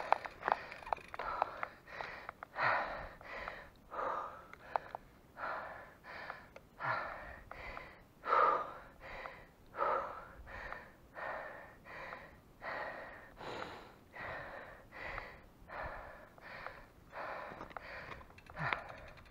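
A cyclist breathing hard, with short gasping breaths about one every three quarters of a second, the heavy panting of hard effort on the bike.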